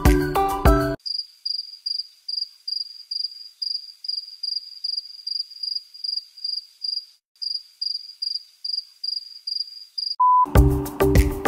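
A cricket chirping: one high-pitched chirp repeated steadily, about four to five times a second, with nothing else under it. Background music stops about a second in, and near the end a short beep sounds before the music comes back.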